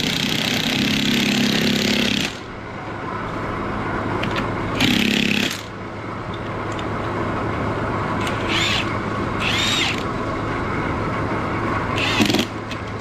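A power tool running in short bursts: a long run of about two seconds at the start, a shorter one about five seconds in and a brief one near the end, over a steady low hum.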